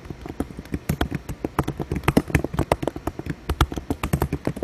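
Fingers typing out a text message: rapid, irregular clicks and taps, several a second.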